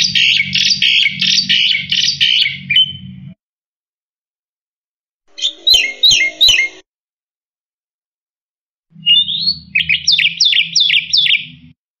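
Black-winged myna (jalak putih) singing in three bursts of rapid, repeated sharp high notes with short silences between them. A low hum runs under the first and last bursts.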